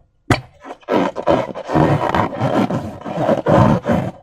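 Slime and balloon rubber being squeezed and worked by hand. A sharp click comes about a third of a second in, followed by irregular bursts of squelching and rubbing.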